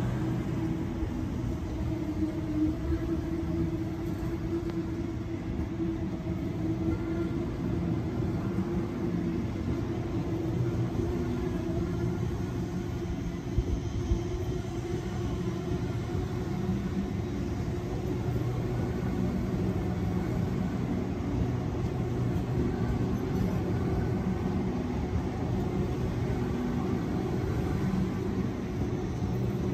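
Sydney Trains Waratah double-deck electric train moving slowly alongside the platform, giving a steady low hum from its motors and on-board equipment.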